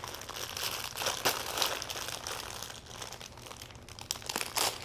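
Packaging crinkling and rustling in irregular crackles as it is unwrapped and handled.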